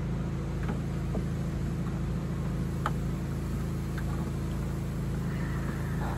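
A steady low mechanical hum, with a few faint sharp clicks of a socket on metal as a bolt is worked by feel.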